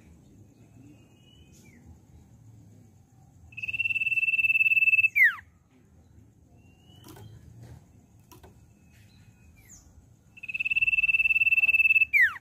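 Common iora (cipoh) whistling: two long, steady whistles about a second and a half each, each ending in a quick downward slur. A few short, soft chirps come in between.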